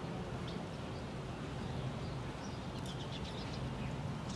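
Scattered short bird chirps over a steady low background hum.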